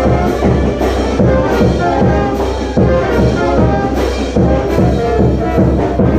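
Music with brass and a steady, driving beat over a heavy bass.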